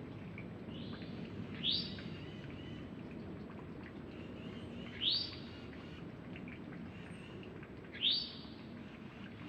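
A songbird gives a short, sharp rising call three times, about three seconds apart, over the steady rush of a mountain stream.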